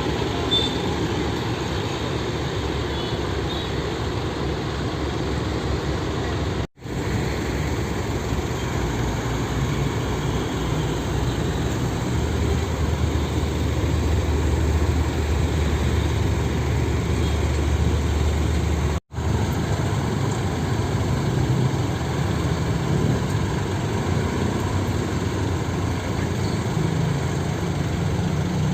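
Heavy diesel truck engines running steadily amid road traffic, a low rumble that shifts in pitch after each of two sudden brief cut-outs, about 7 and 19 seconds in.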